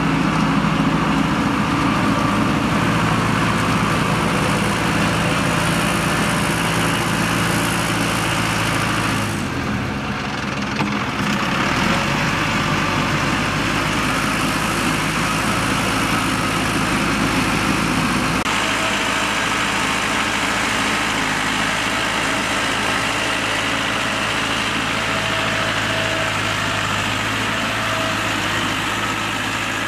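Tractor diesel engine running steadily under load while pulling a rotary tiller through flooded paddy mud. The sound dips briefly about ten seconds in, and the engine note changes near eighteen seconds.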